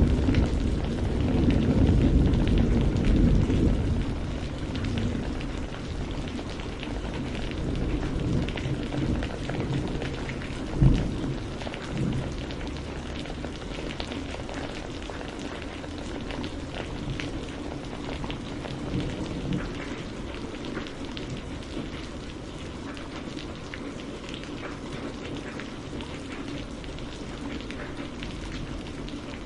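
Steady rain falling, with a low rumble of thunder dying away over the first few seconds. A short thump about eleven seconds in, a smaller one just after, then only the rain.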